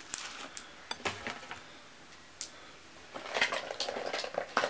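Small makeup containers and tools clicking and clinking as they are handled: a few separate sharp clicks, then a busier run of clicks and rattling about three seconds in.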